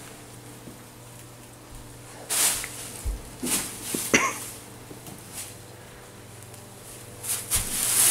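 Plastic bag and tinsel rustling and crinkling in several short bursts as tinsel is stuffed into the bag. There is a brief high squeak a little after four seconds in.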